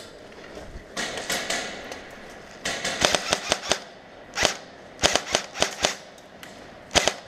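Airsoft guns firing: sharp pops in several short bursts and single shots.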